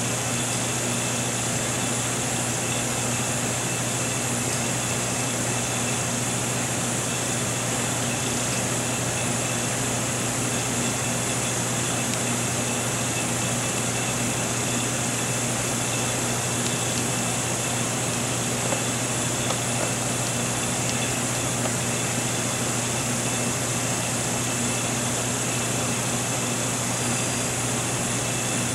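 ATV Technologie SRO 702 reflow oven running steadily through its lamp-heating step: a constant low electrical-mechanical hum with an even fan-like hiss over it.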